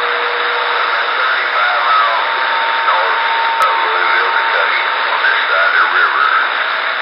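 CB radio receiver hissing with static, with a weak long-distance station's voice faintly audible under the noise. A steady whistle tone sounds for about the first second and a half, and a higher one runs through the middle.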